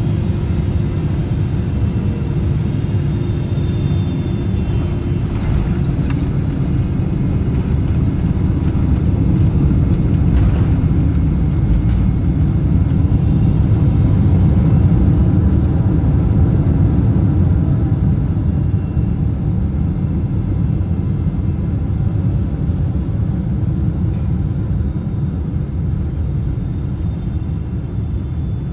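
Cabin noise of an Air France Boeing 777-300ER on its landing roll, heard from a window seat: a loud, steady low rumble that grows louder toward the middle and eases off a little near the end.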